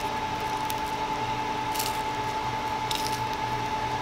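A person chewing a bite of quesadilla, with a few soft crunches, over a steady machine hum that carries a constant high tone.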